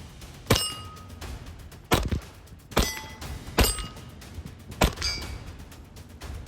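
Hammerli Forge H1 1911 .22 LR pistol fired five times in slow, steady succession, with a short metallic ring after several shots, typical of steel targets being hit.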